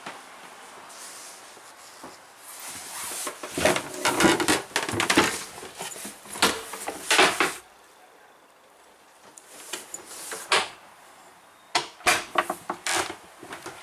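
Bursts of knocking and rubbing against wooden cabin woodwork and fittings, in two clusters: a longer one a few seconds in and a shorter one near the end.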